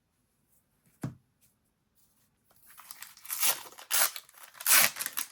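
A foil Disney Lorcana booster pack wrapper being torn open and crinkled, starting about two and a half seconds in with repeated crackling rustles. A single short tap sounds about a second in.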